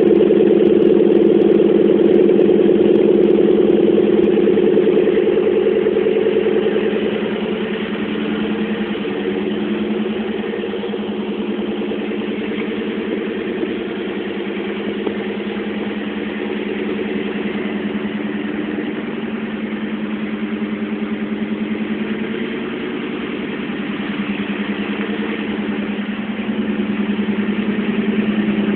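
Low, continuous rumbling snore with a fine fast flutter, steady without pauses, louder for the first several seconds and again near the end.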